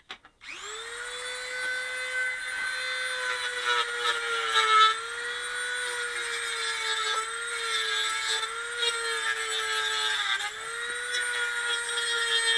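Small electric power saw switched on and cutting through a piece of wood: a high, steady motor whine that spins up about half a second in and dips in pitch briefly under load twice, near the middle and near the end.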